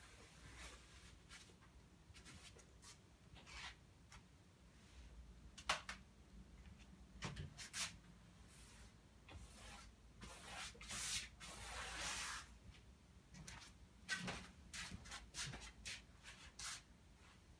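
Brush strokes rubbing and scratching across unstretched canvas, in irregular strokes of varying length, with one sharp tap about six seconds in.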